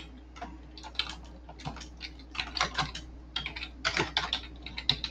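Computer keyboard typing a command: irregular keystrokes, some in quick runs of several clicks, with short pauses between.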